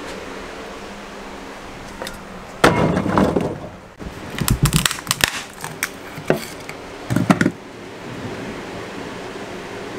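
Demolition with hand tools: rotted wood and old boards cracking, crunching and scraping as they are pried and pulled out with a hammer and a small pry bar, in three or four bursts of sharp clicks and knocks.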